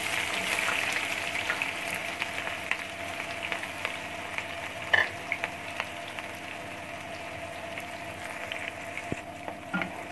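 Chopped red onions sizzling in hot oil in a nonstick wok. The sizzle starts suddenly as they go in and eases off slowly, with a few sharp clicks, a brief clatter about halfway through, and a spatula stirring near the end.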